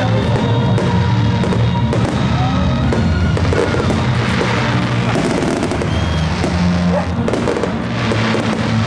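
Aerial fireworks bursting and crackling in many quick sharp bangs, over loud music with a steady low bass line.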